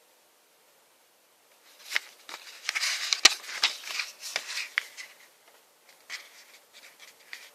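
Handling noises of an unboxing: rustling and clicks as items are picked up and moved, mostly from about two to five seconds in. One sharp click is the loudest, and softer rustles come near the end.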